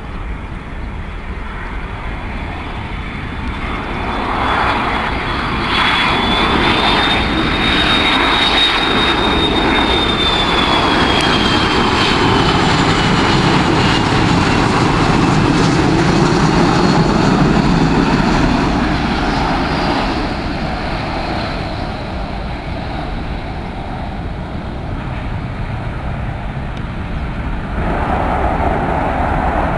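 McDonnell Douglas MD-83 jet airliner on final approach passing close by: the rumble of its rear-mounted turbofans builds, with a high whine that rises slightly and then slides down in pitch as it goes past, before fading. Near the end the engine noise rises again.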